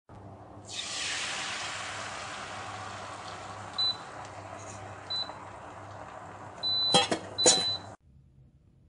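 Hot frying pan sizzling from under a second in, slowly dying down, while a Crock-Pot Express pressure cooker's control panel beeps at button presses: two short beeps, then two longer beeps with clicks near the end. The sound cuts off abruptly after about eight seconds.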